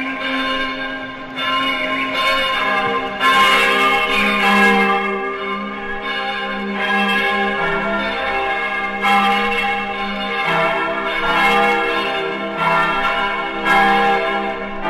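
The carillon bells of the Matriz Basílica of Aparecida ringing, several bells of different pitches struck in turn about once a second, their tones ringing on and overlapping.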